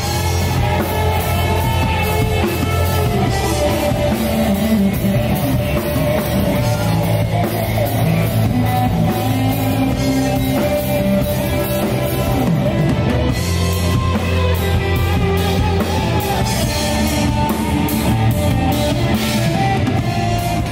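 Live rock band playing loudly: electric guitars and a drum kit, a dense, steady wall of sound.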